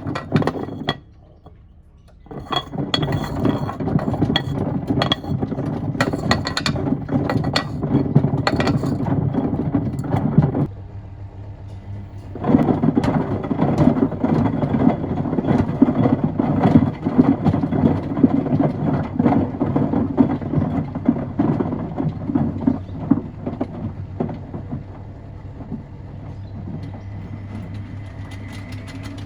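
Miele washing machine drum tumbling a load of stones and wood, which clatter and knock against the drum. The tumbling stops briefly twice, once near the start and once about a third of the way in, leaving a low hum, then resumes. The knocking thins out toward the end over a steady motor hum.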